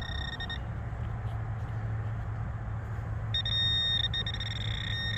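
Handheld metal-detecting pinpointer probe sounding a steady high-pitched alert tone as it finds a metal target in a plug of dirt, briefly at the start and again for about two seconds near the end. A steady low hum runs underneath.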